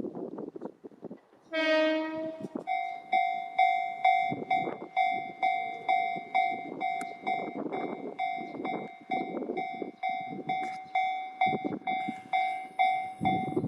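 Japanese level-crossing warning bell ringing in a steady, regular rhythm of about one and a half to two strikes a second, starting about three seconds in. It is preceded by one short horn blast.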